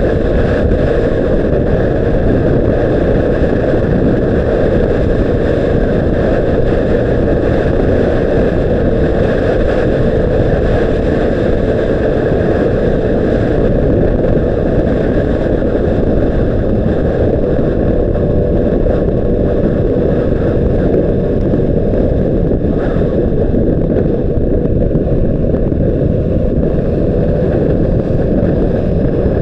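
Honda CBR600RR's inline-four engine running at a fairly steady note while the motorcycle is ridden, heard through heavy wind rush on the action camera's microphone.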